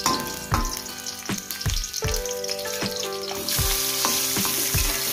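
Shallots and garlic sizzling in hot oil in an aluminium wok. The sizzle grows much louder about three and a half seconds in, as sliced tomatoes and bird's eye chilies are tipped into the oil. Background music with a steady beat plays underneath.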